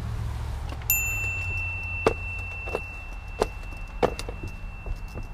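A single metallic ding about a second in that rings on for several seconds, and four sharp knocks about two-thirds of a second apart, over a low steady hum.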